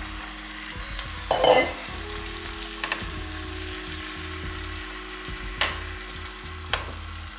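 Beaten egg and dashi mixture sizzling as it is poured into a hot oiled rectangular tamagoyaki pan, with a louder surge of sizzle about a second and a half in. Near the end come two sharp clicks of wooden chopsticks against the pan.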